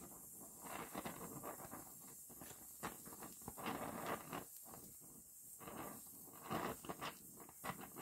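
Small gas welding torch fusing sheet-steel body panel with a hand-fed filler rod: the flame crackles and spits in irregular clusters as the rod is dabbed into the weld puddle.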